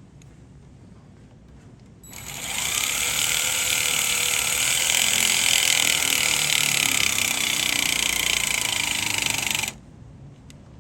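Cordless power driver running for about seven and a half seconds as it tightens the coil-pack screws. Its motor whine rises as it spins up, about two seconds in, then holds steady before cutting off sharply near the end.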